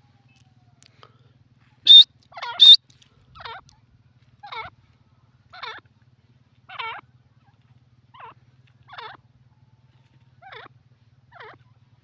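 Grey francolin (teetar) giving a run of short calls about once a second, each sliding down in pitch. The two loudest and sharpest come about two seconds in, and softer ones follow.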